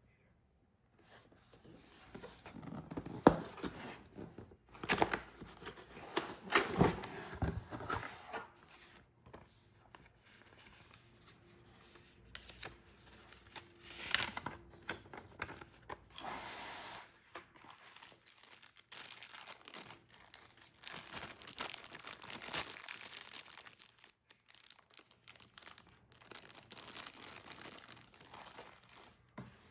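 Packaging being handled and opened: irregular crinkling and tearing of plastic wrap and cardboard, with a few sharp knocks, loudest in the first third.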